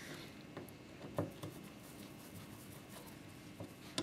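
Faint scraping and small clicks of a screwdriver turning screws into the metal end housing of a Makita belt sander, with a sharper click about a second in and another near the end.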